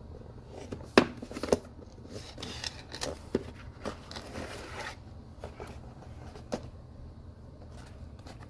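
Packaging being handled and opened by hand: two sharp clicks about a second in, then rustling and crinkling, with scattered taps and knocks.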